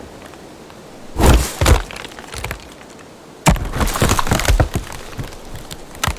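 Wood cracking and breaking: two sharp cracks about a second in, then a sudden longer run of splintering and crunching from about halfway through that tails off.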